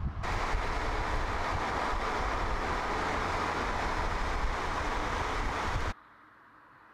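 Steady rushing road and wind noise of a car driving at speed, with a faint low engine hum underneath. It cuts off suddenly about six seconds in.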